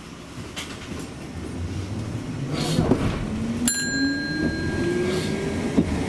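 Hankai tram pulling away: rumbling that grows louder, a single bell ding a little after halfway, then the traction motors' whine rising steadily in pitch as the tram accelerates.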